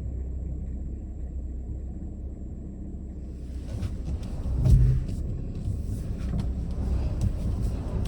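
Car engine running with a steady low rumble heard from inside the cabin; about three seconds in, a wider hiss of tyre and road noise joins it as the car gets moving, with a single low thump near the middle.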